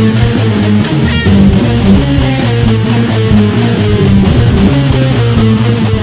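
ESP LTD M-100FM electric guitar played with a pick: a steady run of notes changing several times a second, with a short high rising squeal about a second in.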